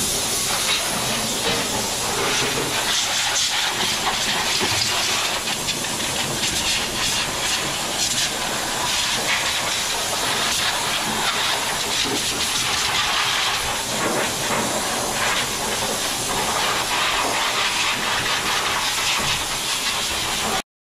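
Steady, loud hiss from the engine-cleaning equipment fed by hose into a Toyota Crown's engine bay during an engine cleaning. It cuts off suddenly near the end.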